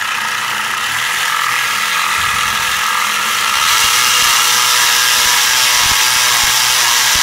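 Small 3D-printed Roots blower spun at high speed by an electric motor, a steady mechanical whir with a rattle of meshing rotors. It grows louder about three and a half seconds in.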